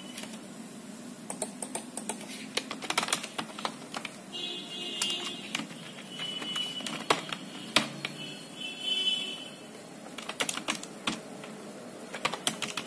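Irregular clicks and taps of numbers being entered into a calculator on a computer.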